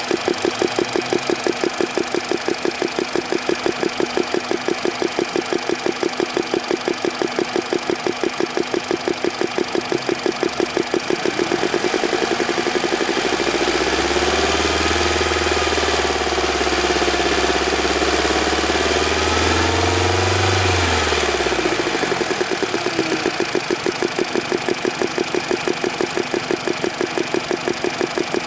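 Hot car engine idling with a fast, even metallic ticking knock from a hydraulic valve lifter, which the owner blames on the lifter losing oil pressure once warm. Around the middle the revs rise and fall for several seconds and the ticking blurs, then the steady ticking returns.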